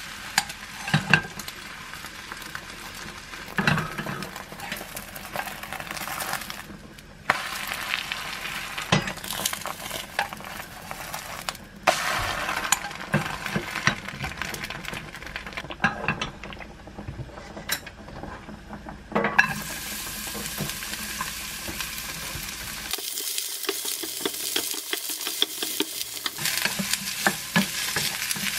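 Egg sizzling in a ceramic-coated frying pan on a gas hob, with a wooden spatula scraping and knocking against the pan as the thin egg sheet is turned. Near the end, vegetable strips are stirred and fried in the pan. The sound shifts abruptly several times between takes.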